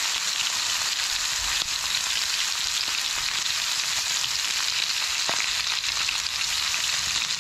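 Seasoned pheasant pieces sizzling in a hot cast iron skillet: a steady frying hiss with faint crackles.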